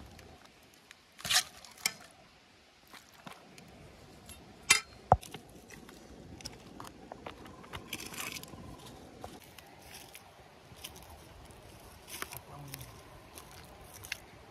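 Steel spoon clinking and scraping against a metal cooking pot as food is served onto a paper plate, with a few sharp, separate clinks.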